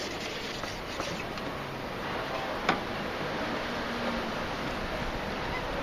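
A small sharpening stone rubbing briefly along a hedge-shears blade, then a single sharp click about two and a half seconds in, over a steady hiss.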